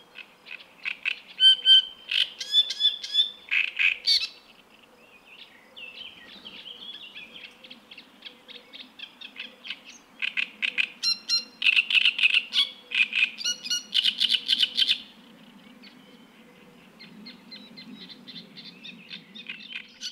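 Male great reed warbler singing: bouts of harsh, rapid, repeated croaking and chattering notes. The loudest bouts come at the start and in the middle, with softer, chattering passages between them.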